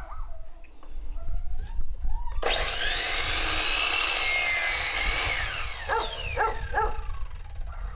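Ridgid sliding compound miter saw switched on about two seconds in, its motor whine rising to full speed as the blade cuts through a wooden deck board for about three seconds, then winding down with a long falling whine after the trigger is released.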